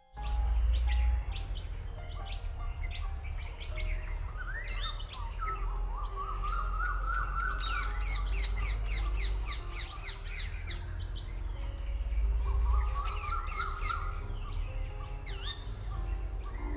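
Birdsong sound effect: many birds chirping and trilling, with fast repeated trills and warbling phrases, over a steady low rumble. It starts abruptly.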